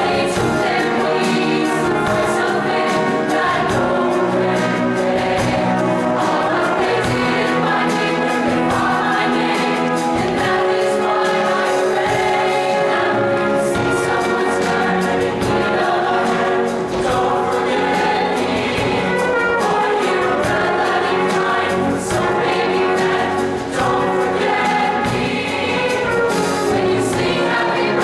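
Mixed show choir singing in full harmony, loud and continuous, over live instrumental band accompaniment.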